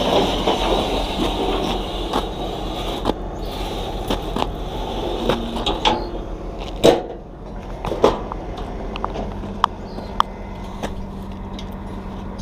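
Metal loading ramps of a U-Haul car-hauler trailer being slid out by hand. A scraping slide fills the first few seconds, then comes a series of metal clanks and knocks, the loudest about seven seconds in, over a steady low hum.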